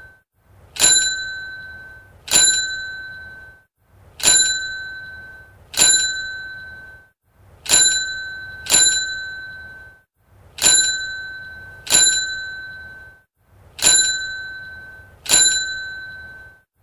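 Small metal bell on a toy bear-riding-a-tricycle, struck over and over as the toy runs: a ring about every one to two seconds, each dying away over about a second.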